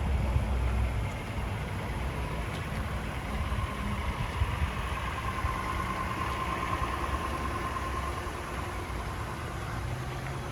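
A vehicle engine idling steadily, a low rumble with a faint whine that grows a little louder midway.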